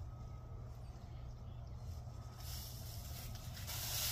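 Rake strokes scratching through dry fallen leaves: a rustling scrape about two and a half seconds in, and another at the very end, over a steady low hum.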